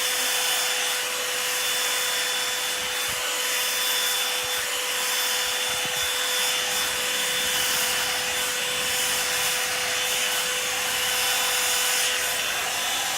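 Revlon One-Step hot-air dryer brush running steadily on its high setting: an even rush of blown air with a steady motor whine, as it is worked through hair from the ends upward.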